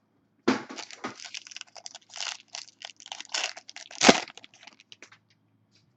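Trading-card pack being torn open, its wrapper crackling and crinkling in quick rustles, with one sharp crack about four seconds in.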